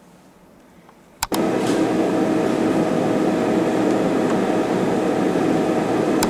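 A loud, steady machine hum with a noisy rush, starting abruptly after a click about a second in and cutting off with another click at the end.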